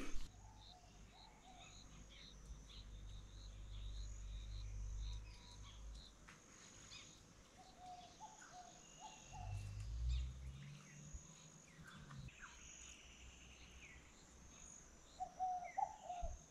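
Outdoor bush ambience: scattered bird calls and chirps over a steady, high-pitched insect drone. A low rumble comes and goes underneath, strongest in the first few seconds and again about ten seconds in.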